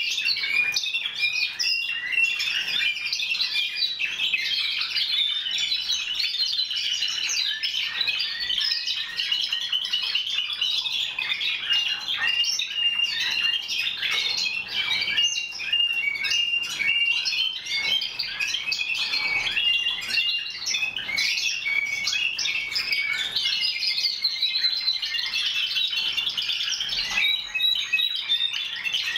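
Several Timbrado Español song canaries singing at once, their high-pitched trills and runs overlapping without a break.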